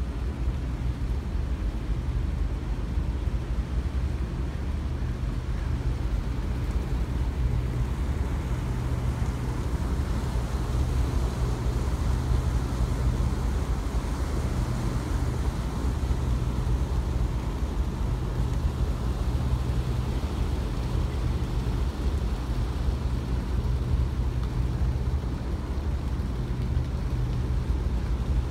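Steady low drone of a river cruise boat's engine under way, with the hiss of water rushing along the hull.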